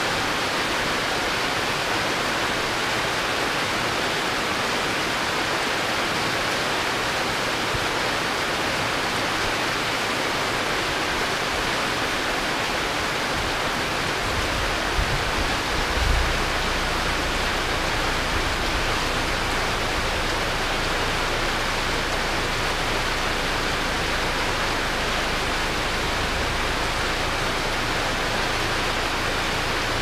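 Heavy rain falling in a steady hiss. About halfway through, a pickup truck's engine starts and runs underneath it as a low rumble.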